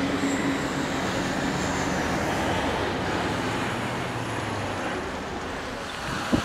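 Airbus A330-200 being pushed back by its tug: a steady mechanical rumble with a faint high whine over it. A short sharp click sounds near the end.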